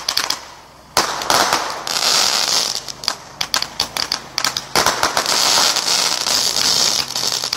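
Consumer fireworks going off in a rapid barrage: many sharp pops and cracks over a steady hiss of burning spark tails and crackle. The barrage starts loud and sudden about a second in and surges again near five seconds.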